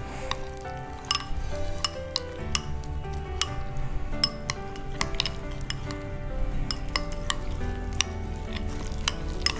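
Metal spoon stirring a thick cream cheese mixture in a glass bowl, clinking and scraping against the glass in quick, irregular strokes, over background music.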